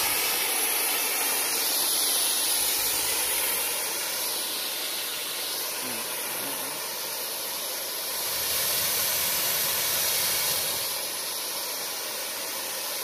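Ground fountain firework (a foil-wrapped cylinder) spraying a column of sparks, giving a steady high hiss that swells and eases slightly as it burns.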